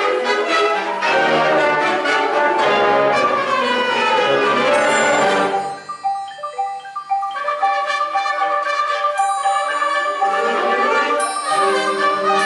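Concert wind band playing live: full sustained brass and woodwind chords, thinning about halfway through to a quiet stretch of short, detached repeated notes, then the full band building back in near the end.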